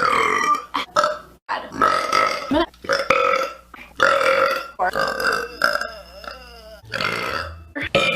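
A woman burping, about seven loud burps one after another with short gaps between them.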